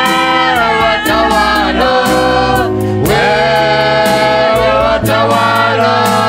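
A group of worship singers singing a gospel song together into microphones, over a backing with a steady beat and a bass line.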